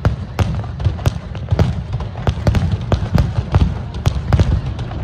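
Aerial firework shells bursting in a rapid, irregular barrage of sharp bangs, about three a second, over a steady low rumble.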